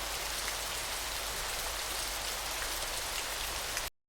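Steady hiss of falling water that cuts off abruptly near the end.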